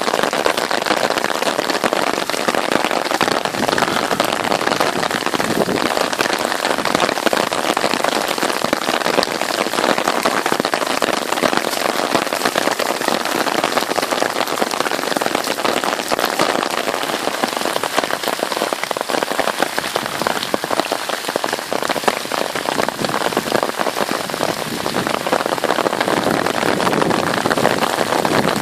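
Heavy rain pouring down and pattering on surfaces, a loud, dense, steady hiss of drops.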